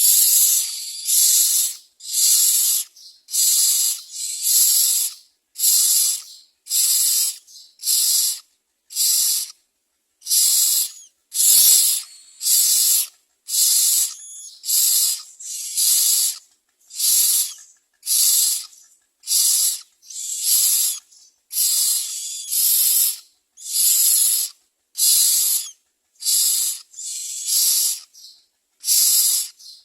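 Myna nestlings giving hissing begging calls, one about every second, as they beg for food.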